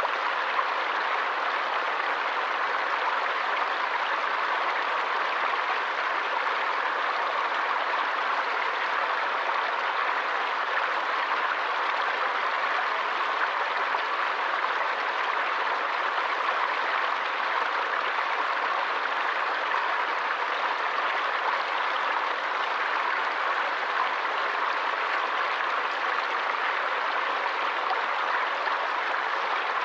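Stream water flowing: a steady, even rush of water that does not change.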